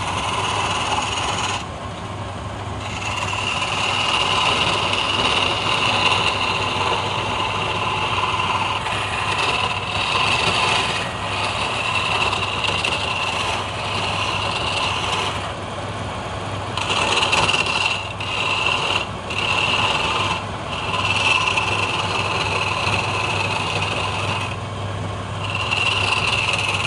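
Wood lathe motor running with a steady hum while a hand-held chisel cuts a spinning palm-wood spindle. The cutting hiss stops briefly a few times as the tool is lifted off the wood, then resumes.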